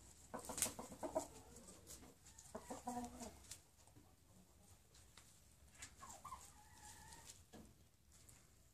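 Domestic fowl clucking: a run of short calls near the start and another about two and a half seconds in, then a couple of gliding calls around six seconds in, with scattered sharp ticks between them.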